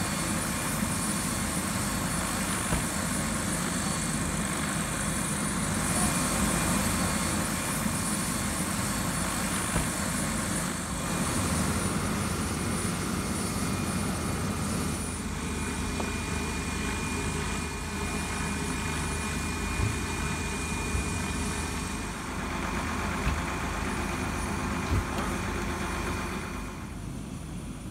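Medical helicopter running on the ground: its turbine and rotor make a steady rushing noise with a thin high whine over it. The sound drops off shortly before the end.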